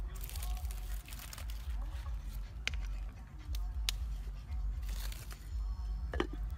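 Fresh green leaves crinkling and rustling as they are handled, over a steady low rumble, with a couple of sharp clicks. Near the end there is a short knock as the clay pot's lid is handled.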